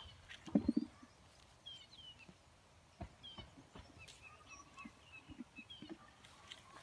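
Scattered small knocks and clicks of cherry tomatoes being picked and dropped into a plastic bucket among rustling vines, the loudest cluster about half a second in. Faint bird chirps throughout.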